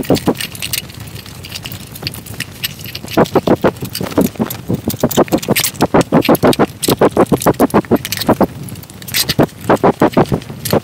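Motorcycle front tyre and inner tube being worked by hand onto the wheel rim, giving clusters of rapid clicking and creaking, several a second, in bursts of a second or two.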